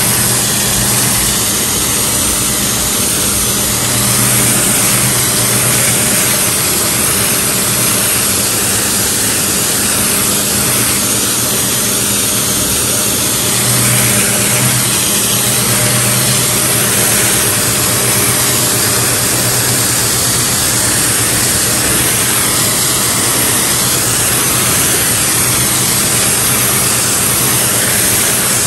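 Pressure washer running steadily, its jet of water hissing against a car's painted side as soap foam is rinsed off.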